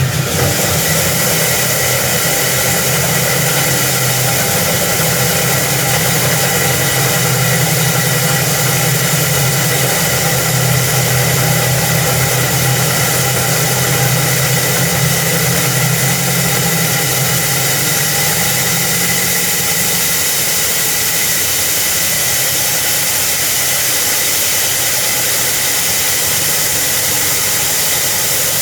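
Concrete core cutting machine running steadily, its motor and diamond core bit grinding through an RCC slab; its low hum drops off about two-thirds of the way through.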